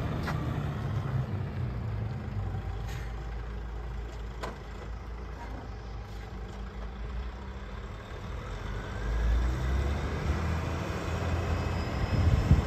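DAF XF105.410 tractor unit's diesel running, a low rumble that fades as the truck drives off. The rumble grows louder again with a rising whine over the last few seconds as it pulls back toward the listener.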